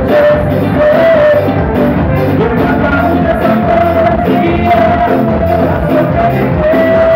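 Live band music played loudly, with electric guitar, trombone and drums keeping a steady beat. A long held note stands out in the middle and again near the end.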